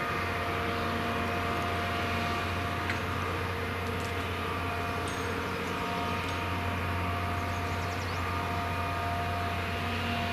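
Diesel engine idling steadily, an even low hum that does not change.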